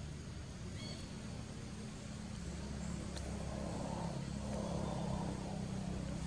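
A low, steady motor rumble that grows a little louder about halfway through, with a few faint short high chirps about a second in.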